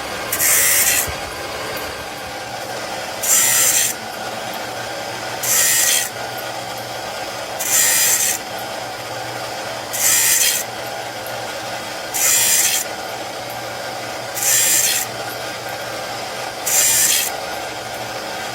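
Factory machinery in a motorcycle engine valve works running with a steady hum, with a short rasping hiss repeating evenly about every two seconds, eight times in all, as of an automated machine cycle.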